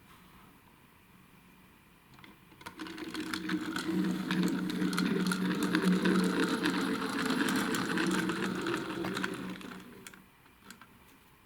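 Small toy car's motor and plastic gears whirring with a rapid clicking. It starts about two and a half seconds in, runs steadily, and stops about ten seconds in.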